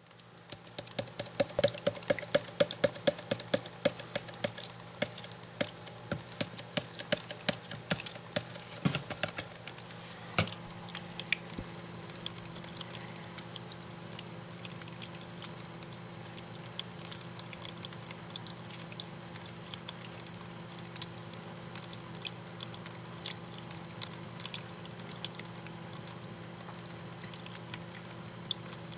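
Small terrarium waterfall trickling and dripping into a shallow pool: quick drips and splashes, thickest over the first ten seconds and sparser after, over a low steady hum.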